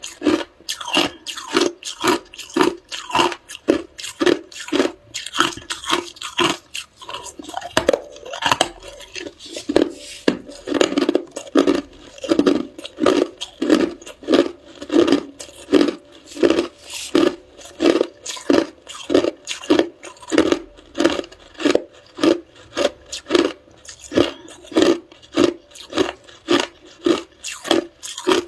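Ice being chewed close up: a steady run of hard crunches, about two a second.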